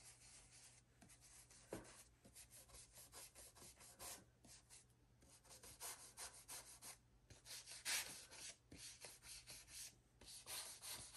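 Faint rubbing of a round ink blending brush on paper, a run of short, irregular strokes with brief pauses.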